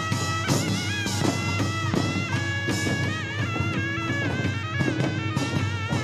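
Korean traditional music for a drum dance: a high, wavering melody line with vibrato over frequent drum strokes.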